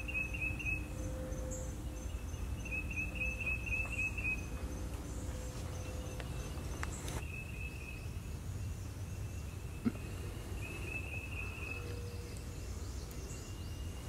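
Outdoor swamp-edge ambience with a steady low rumble, and a small creature's high-pitched trill repeating several times, each bout lasting about one to two seconds.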